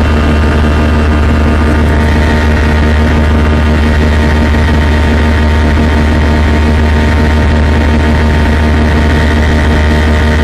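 Airbus A320 cabin noise in flight: a loud, steady drone of the jet engines and airflow, with a strong low hum and several steady tones.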